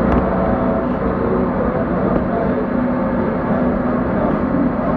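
Steady road and engine noise from inside a moving vehicle at highway speed.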